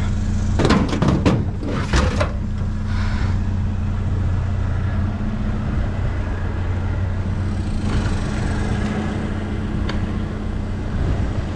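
A vehicle engine idling steadily with a low hum. In the first couple of seconds there is a clatter of items being handled.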